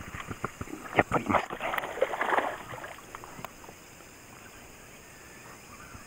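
Clicks and knocks of rod, reel and boat, with a brief rushing noise about two seconds in, as a hooked black bass is played close to the boat. It goes quieter after about three seconds.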